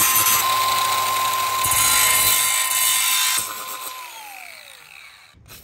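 DeWalt 20V cordless angle grinder with a cut-off wheel cutting back the squared metal edges of a Flarespace bed-system piece: a steady high motor whine under loud grinding. The cutting stops a little over three seconds in, and the whine then falls away as the wheel spins down.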